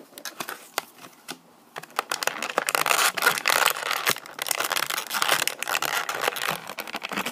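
Clear plastic blister packaging and a thin plastic bag crinkling and tearing as they are worked open by hand. The crackles are sparse at first and turn dense and busy about two seconds in.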